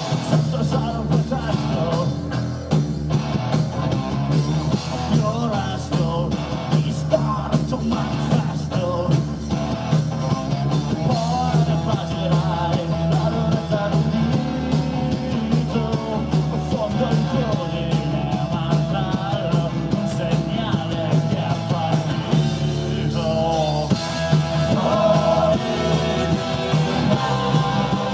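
Rock band playing live: distorted electric guitar, bass and drum kit, with a man singing over them.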